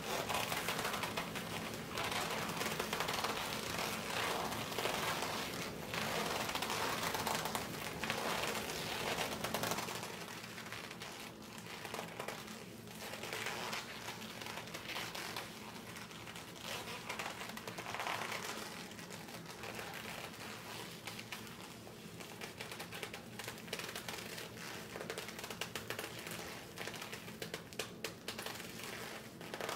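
Thin leather glove rubbing and pressing against a leather shirt, giving a leather creaking and crinkling. It is louder for about the first ten seconds, then softer, with fine crackling clicks.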